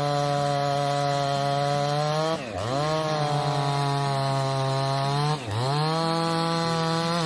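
Holzfforma G288XP big two-stroke chainsaw running at high revs, sawing oak with a steady scream; the engine speed sags briefly and recovers twice, about two and a half and five and a half seconds in.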